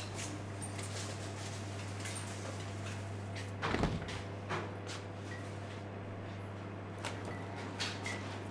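Glass door of a shop's drinks fridge being opened and bottles handled: scattered light clicks and knocks with one louder thump about four seconds in, over a steady low hum.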